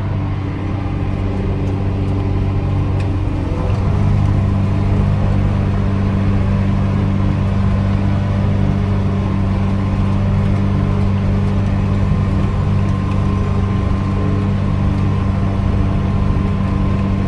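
Massey Ferguson 5S.145 tractor's diesel engine running steadily under load while mowing with the PTO-driven mower engaged. It gets a little louder, its note shifting, about four seconds in.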